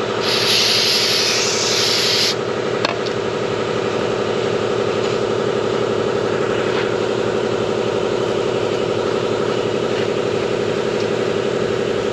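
Aerosol solvent cleaner sprayed in one hissing burst of about two seconds that cuts off abruptly, followed by a towel rubbing over the metal. Underneath runs a steady, evenly pulsing machine sound.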